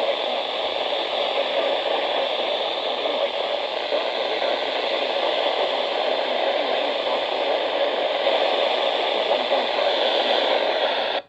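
Steady radio static: an even hiss from a receiver with no programme audio, which cuts off abruptly at the very end.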